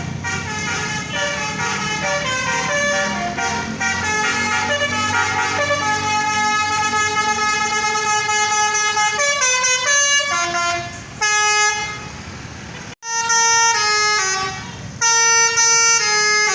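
Bus's multi-tone Basuri telolet air horn playing a stepped, tune-like sequence of notes, over engine rumble in the first few seconds. The horn cuts off abruptly about thirteen seconds in, then starts again with more notes.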